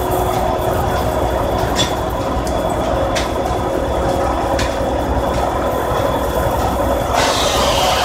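Steam-driven sawmill running steadily, a constant low machine rumble with a few sharp knocks as a log is worked onto the carriage. About seven seconds in a louder, hissing whir comes in as the carriage feed drive starts.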